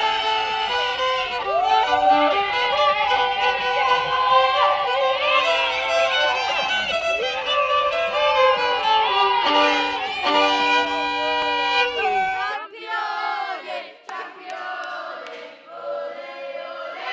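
Music with a violin carrying the tune over full backing; about twelve and a half seconds in the bass drops out and a quieter, thinner passage follows.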